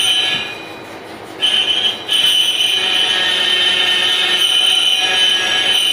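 Metal lathe turning a workpiece, the cutting tool screeching against the metal in a high-pitched squeal. The squeal drops away shortly after the start, returns about a second and a half in, and then holds steady as the cut goes on.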